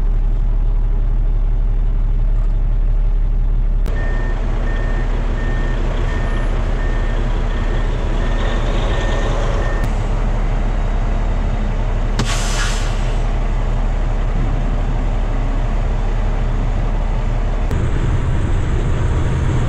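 Heavy diesel truck engines running, with a reversing alarm beeping steadily for several seconds and a short, loud hiss of air brakes releasing about two-thirds of the way through. The engine drone changes near the end to the steady sound of a truck at highway speed.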